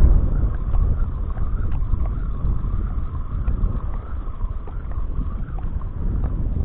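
Wind buffeting the microphone in a steady low rumble, with a faint wavering whine and a few light ticks above it.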